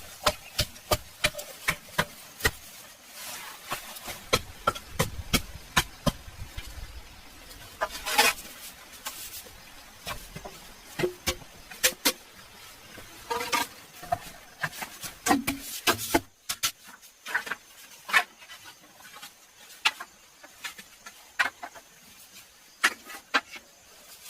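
An irregular series of sharp taps and knocks, about two or three a second in the first half and sparser later, with a few longer scraping sounds in between.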